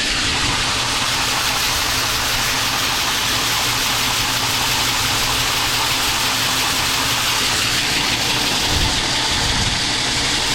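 Grain bin aeration fan running with a steady, loud rush, over the low hum of an idling engine.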